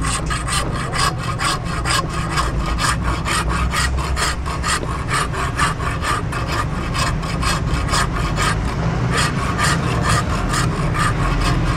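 Hand file scraping back and forth across the steel edge of a meat cleaver blade clamped in a bench vise, in quick, even strokes several times a second, as the edge is filed into shape.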